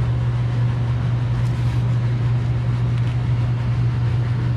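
Steady low drone of a commercial kitchen's ventilation fan, an even hum with a rushing-air haze over it.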